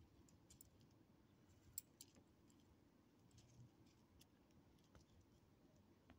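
Near silence, broken by faint scattered clicks and ticks, the two strongest close together about two seconds in.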